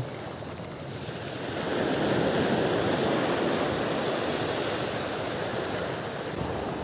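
Small waves breaking and washing up a pebble beach, the wash swelling louder about a second and a half in and then holding steady.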